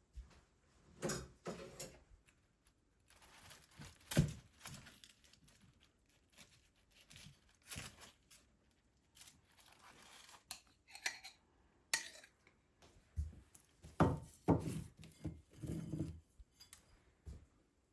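Scattered knocks, clinks and rustling of kitchen handling: dishes, pots and utensils being set down and moved about, with a few sharper knocks after the middle.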